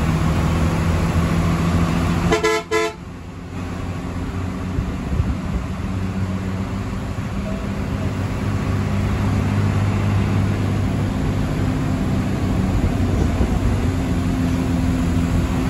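Hino AK1J bus engine running steadily under way, with rain and wet-road noise, heard from inside the cabin. About two seconds in, a vehicle horn gives a quick string of short toots, and the sound dips briefly just after.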